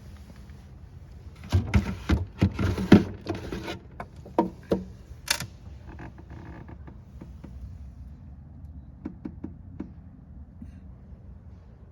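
A quick run of knocks and clatter lasting about two seconds, a sharp click about five seconds in, then a few faint ticks over a low steady background.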